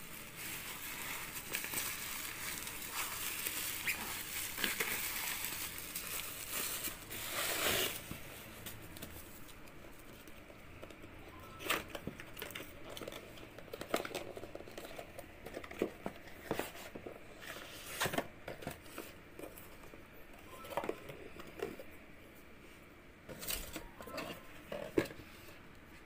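Plastic parcel wrapping crinkling and rustling as it is handled and pulled open, then a cardboard box being handled, with scattered light knocks and taps.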